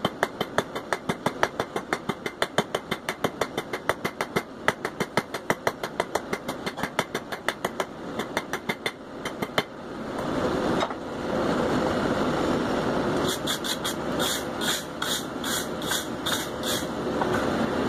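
Hand hammer striking hot steel on an anvil in quick, even blows, about five a second, as the bar is rounded out and shaped into a leaf. The hammering stops a little under ten seconds in, and a steady rushing noise comes up, with a run of lighter, higher ticks a few seconds later.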